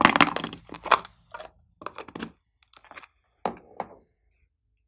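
Small hard plastic box being handled and opened: a burst of crackling clicks, then a string of separate clicks and taps that stop about four seconds in.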